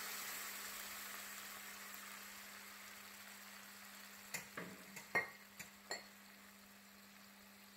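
Water poured into a hot pan of sautéed vegetables, sizzling with a hiss that fades away over the first few seconds. Then a few light clicks and clinks.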